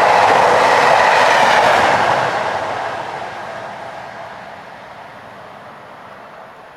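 Class 43 High Speed Train test train passing at speed, its wheels and engines loud at first; about two seconds in the sound starts to fade away steadily as the train leaves.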